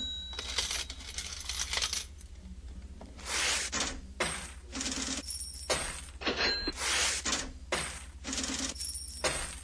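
Coins jingling and dropping in a long string of short metallic clinks and clatters, some leaving a brief bright ring.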